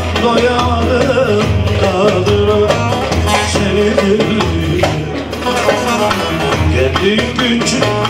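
Live Turkish folk music: a long-necked bağlama (saz) playing a wavering melody over regular low hand-drum beats.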